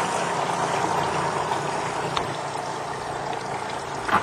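Steady noise of a small boat under way: its motor running, with water rushing along the hull and a faint steady whine throughout.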